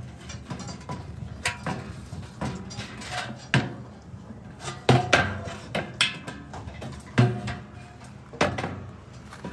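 Stainless steel washing-machine drum being turned and handled, giving irregular metallic knocks and clanks. The loudest pair comes about five seconds in.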